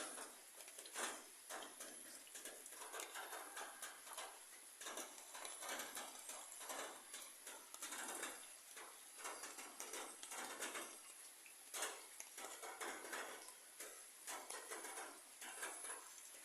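Rain falling on broad papaya leaves: a steady patter with a dense run of irregular drop taps, some louder than others.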